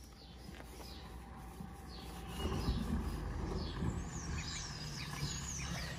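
Outdoor background rumble with a bird chirping a few short, high, falling notes about four seconds in.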